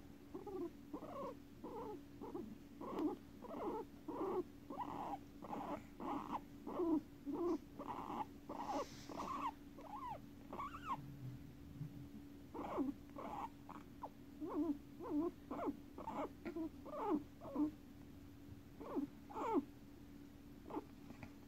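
Guinea pigs making short squeaking calls in a steady series, about two or three a second, with a brief pause midway. A steady low hum lies underneath.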